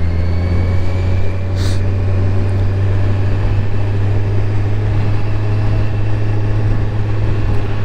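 Motorcycle engine running steadily at an even cruising pace, a constant low hum with road noise.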